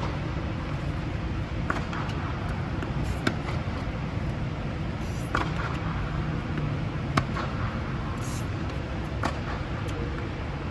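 Tennis balls struck by rackets and bouncing on a hard court in a rally: sharp pops about every two seconds, some louder and some fainter, over a steady low hum.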